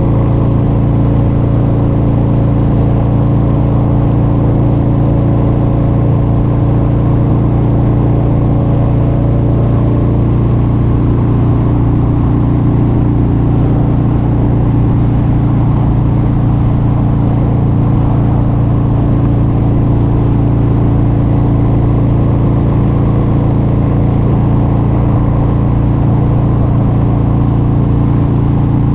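Motorcycle engine running steadily at cruising speed, with no change in pitch or level.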